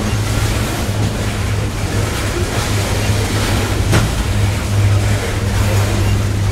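Coal cars of a freight train rolling past close by, a steady rumble and hiss of steel wheels on the rails, with one sharp click about four seconds in.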